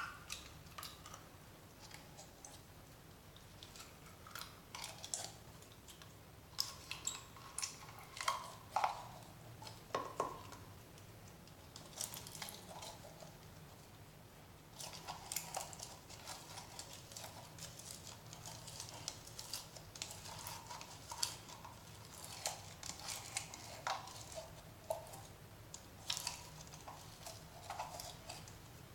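Clear slime being squeezed out of a plastic jar and pressed and stretched by hand, making irregular sticky little crackles, pops and clicks.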